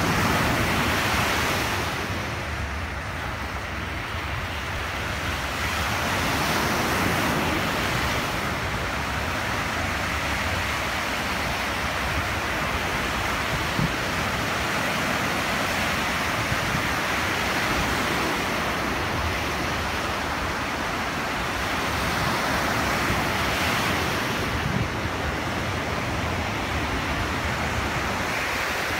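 Lake Michigan surf breaking on a sandy shore: a continuous wash of waves that swells and eases every several seconds.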